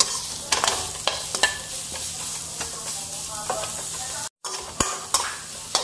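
Grated carrots and garlic sizzling in olive oil in a wok, stirred with a metal slotted spoon that scrapes and clicks against the pan several times. The sound drops out briefly about four seconds in.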